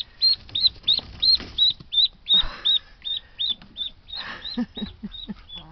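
Ducklings peeping: a steady run of high-pitched peeps, about three a second.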